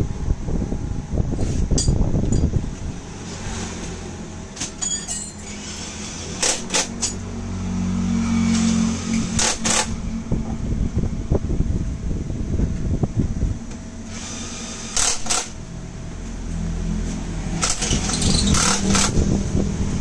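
Metal tools and parts clinking and knocking as a scooter's front wheel and axle are refitted, with scattered sharp clicks over low rumbling handling noise and a low steady hum.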